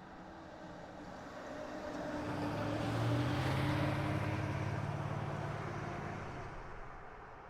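A car driving past: engine hum and tyre noise swell to a peak about halfway through and then fade away.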